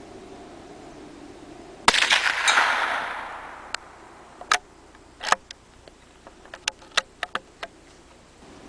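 A single shot from a CZ 452 American .22 bolt-action rifle about two seconds in, its ring dying away over a second and a half. Then the bolt is worked, with a run of sharp metallic clicks as the spent case is ejected and the next round chambered.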